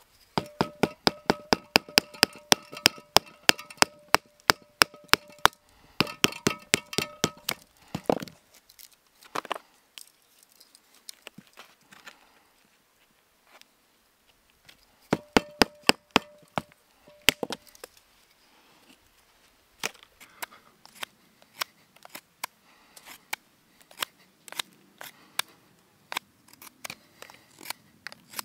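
Small hand saw cutting a wooden stick in quick, regular strokes, about four or five a second, with the blade ringing. There are two runs of sawing with a pause between them, then lighter, scattered strokes near the end.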